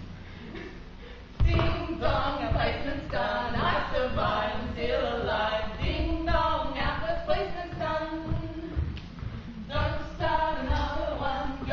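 A small group of voices singing together without accompaniment, coming in about a second and a half in.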